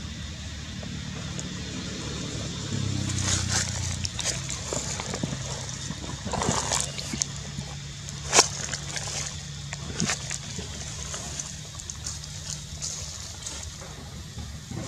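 A motor engine running steadily with a low hum, with scattered rustles and clicks over it; one sharp click stands out a little past the middle.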